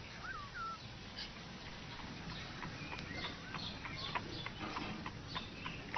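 Faint, high chirping calls: two short curved chirps in the first second, then a quick run of short chirps over a low hum.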